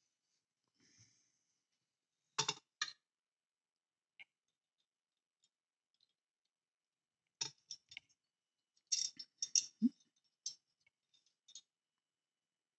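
Small clicks and taps of model car parts being handled and fitted, a thin stabilizer bar being pushed into the chassis and suspension: two sharp clicks about two and a half seconds in, then two clusters of quick clicks later on.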